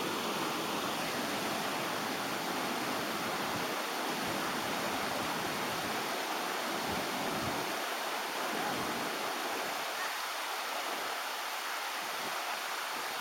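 River water rushing over rapids: a steady, even rush of white water.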